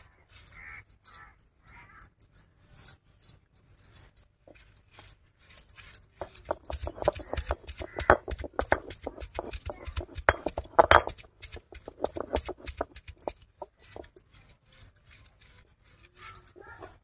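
Stone roller grinding herb leaves on a granite ammi grinding slab: repeated rubbing strokes and knocks of stone on stone, with metal and glass bangles clinking on the wrist. The strokes come thicker and louder through the middle.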